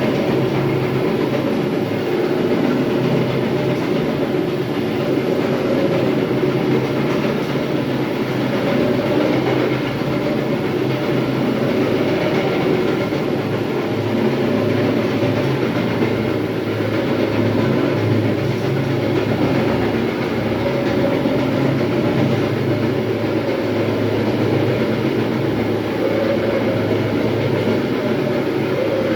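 Electric terrazzo grinder running steadily on a floor, a loud, unbroken grinding noise over a steady low motor hum.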